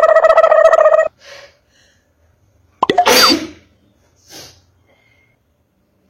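A loud, high held vocal note for about the first second, then a person sneezing, a sudden burst a little under three seconds in, set off by powder in the nose.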